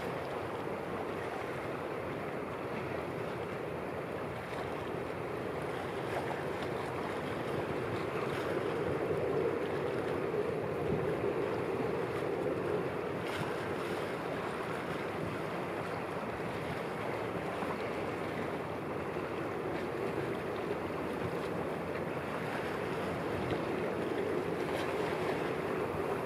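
Steady wind noise on the microphone over choppy open water, with the rush of small waves.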